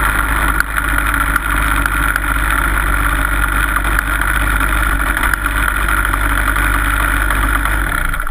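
Two-stroke TaG kart engine running steadily at low revs while the kart rolls slowly behind another kart, picked up by a camera mounted on the kart.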